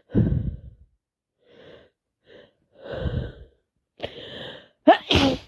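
A woman with a cold taking several short, heavy breaths, then sneezing once, loud and sharp, near the end.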